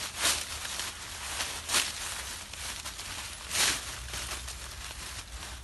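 Dry fallen autumn leaves rustling and crunching as a dog scrambles through them, with three louder crunches about a second and a half apart.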